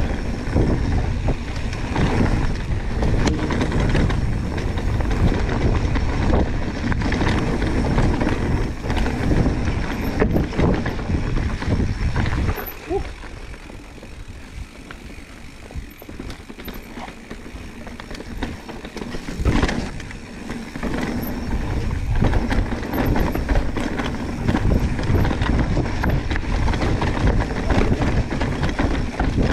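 Mountain bike ridden down a dirt trail: tyre roar, wind on the microphone and a constant clatter of knocks and rattles from the bike over rough ground. It goes quieter for several seconds just before the middle, a sharp knock ends the lull, and the loud rattling riding resumes.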